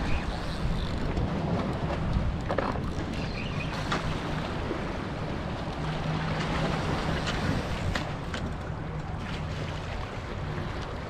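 Outdoor wind noise buffeting the microphone over water washing on rocks, with a faint low drone coming and going and a few light clicks.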